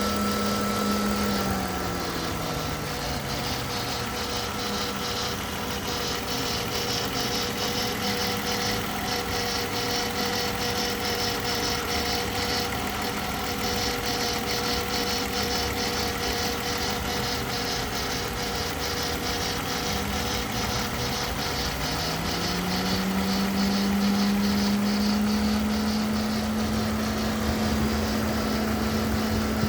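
BMW E39 520i's straight-six engine idling, with fast, even ticking and a steady whine that drops in pitch about two seconds in and climbs back about twenty-two seconds in. It is the strange noise the owner is recording, with no cause given.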